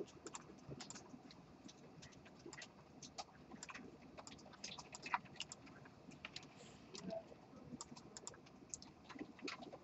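Faint, irregular clicking of a computer keyboard and mouse.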